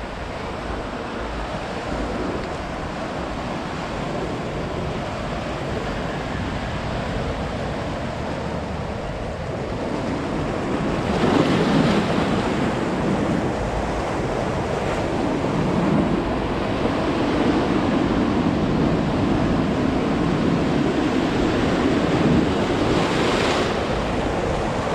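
Ocean surf: waves breaking and washing up the shore in a steady rush. It swells louder about eleven seconds in with a breaking wave, and another wave breaks near the end.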